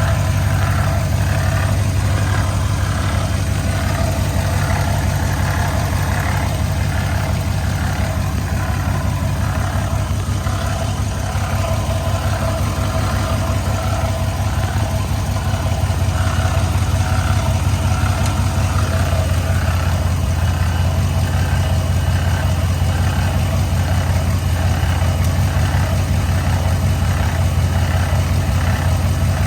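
Dodge Challenger 392's 6.4-litre HEMI V8 idling steadily, with a higher-pitched noise recurring about once a second that the owner cannot identify.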